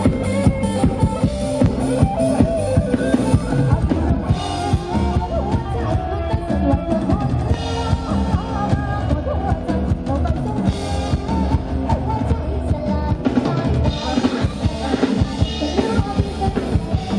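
Live band music from a Thai rot hae sound truck: a drum kit keeps a steady beat under electric guitar, with a heavy low end, played loud through large speaker stacks.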